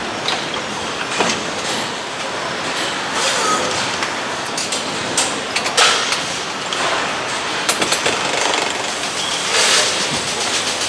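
Motorcycle assembly-line factory noise: a steady clattering din of line machinery, with scattered metallic clicks and clanks from hand tools and parts being fitted, and a quick run of ticks about eight seconds in.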